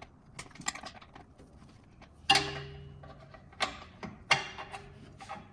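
Hand tools clicking and clanking against metal engine parts while intake plenum bolts are fastened. There are three sharp metallic clanks with brief ringing, a little over two seconds in, then twice more near the end.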